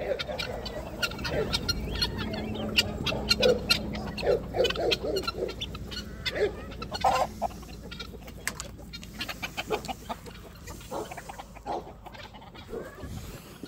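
A mixed flock of chickens and guinea fowl clucking and calling, with many short, sharp calls overlapping, thickest in the first half.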